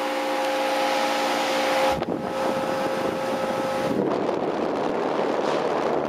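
1995 Lennox HS29 4-ton central air conditioner condensing unit, with a Copeland reciprocating compressor, running in cooling mode: a steady hum with a constant whoosh from the condenser fan. About four seconds in, the humming tones fade under a rougher rush of air.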